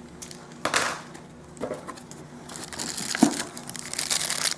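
Unboxing packaging being handled: a few separate knocks and rustles, then plastic wrapping crinkling from about two and a half seconds in.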